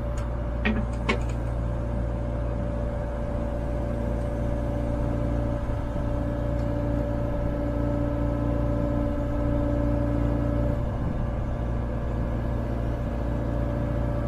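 Kubota KX057-4 compact excavator's diesel engine running steadily, with a few short clanks about a second in.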